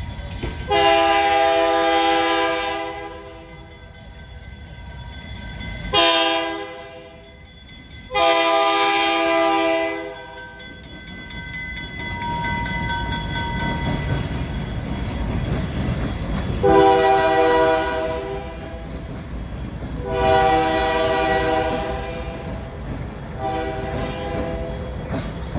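Diesel locomotive's multi-tone air horn sounding a series of long and short blasts for a grade crossing, about half a dozen, with another starting at the very end. Between the blasts the low rumble of the diesel engines grows as the locomotives run light through the crossing.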